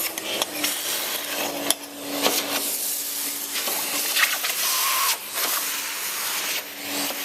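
Metal swarf being cleared from freshly drilled holes in a steel tank: continuous scraping and rattling with many scattered metallic clicks over a faint steady hum.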